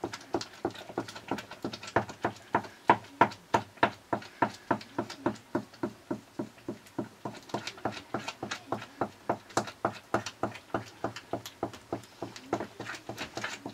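A spoon knocking and scraping against a frying pan as greens are stirred: a quick, steady clatter of about four strokes a second.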